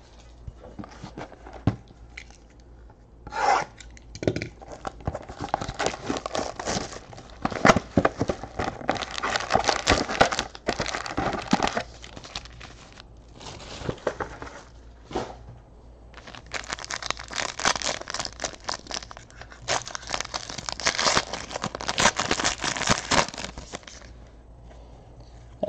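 Trading-card pack wrappers being torn open and crinkled, with cards rubbing and tapping as they are handled, in irregular flurries of short rips and rustles.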